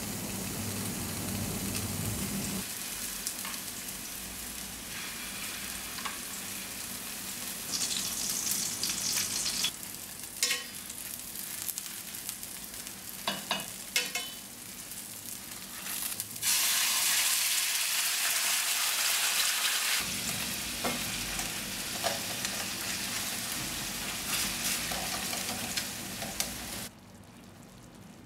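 Meatballs and shiitake mushrooms sizzling in hot oil in a stainless steel frying pan, with a few sharp clicks of metal tongs against the pan partway through. The sizzling swells for a few seconds and drops to a much quieter level near the end.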